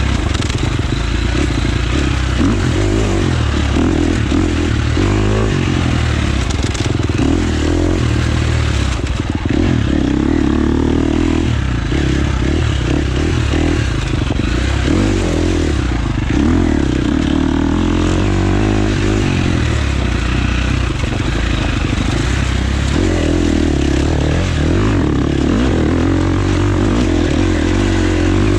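Husqvarna FX 350 four-stroke single-cylinder dirt bike engine being ridden hard, its note rising and falling as the throttle opens and closes, with some clatter and scraping.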